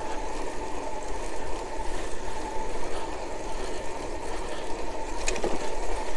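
Electric bicycle riding along: steady wind and road noise with a thin, steady whine from its Alba 500-watt conversion-kit motor, and a short tick about five seconds in.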